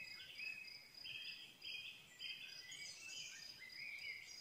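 Faint birdsong, with varied short calls and trills and a rising call near the end, over a high chirp that repeats evenly throughout.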